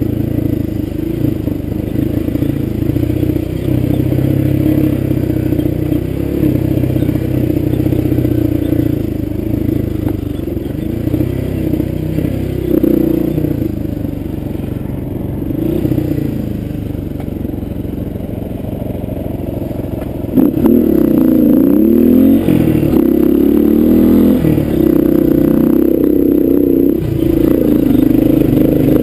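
Honda dirt bike engine running under changing throttle while riding a rough trail. It gets louder about twenty seconds in, its pitch rising and falling as it is revved.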